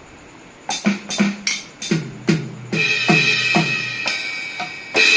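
Alesis Nitro Mesh electronic drum kit being played: after a brief pause, a string of single drum strikes, two or three a second. A cymbal crash about three seconds in rings on under further hits, and another crash comes near the end.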